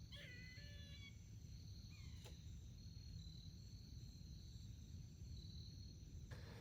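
Quiet woodland with a faint high insect-like tone and a squirrel chirping briefly in the first second, followed by a short falling note and a single click about two seconds in.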